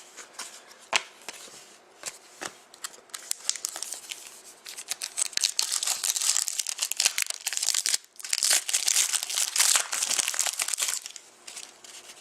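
A trading-card pack wrapper being handled, torn and crinkled. There are a few light clicks at first, then about three seconds of dense crinkling, a brief pause, and another stretch of crinkling.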